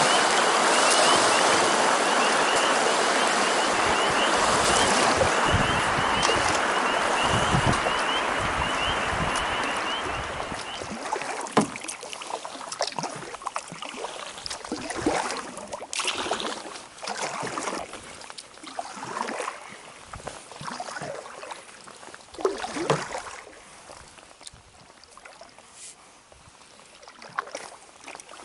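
Water rushing over a beaver dam, a steady rush that fades away over about the first ten seconds as the canoe moves off. Then come canoe paddle strokes: scattered splashes and light knocks of the paddle against the hull, a few seconds apart.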